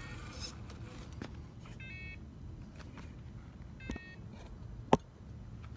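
Scale RC 4x4 crawler running in low gear with its locker engaged as it crawls over loose rock: a steady low rumble with scattered clicks, and one sharp knock about five seconds in. A short high chirp comes twice, about two and four seconds in.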